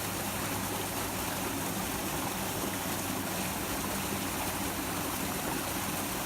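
A stream flowing steadily.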